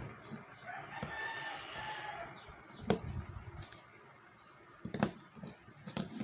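A rooster crowing once in the background, one drawn-out call of about a second and a half starting about a second in. A few sharp clicks follow, about a second apart.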